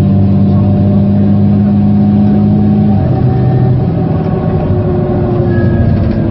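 Van Hool A330 bus's diesel engine pulling hard at full throttle with its ZF automatic gearbox in kickdown, holding a steady high note; about three seconds in the gearbox shifts up, the pitch drops, and the engine note begins climbing again.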